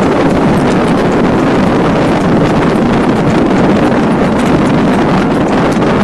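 Loud, steady wind noise buffeting the microphone on a moving motorcycle, with the bike's running and road noise blended underneath.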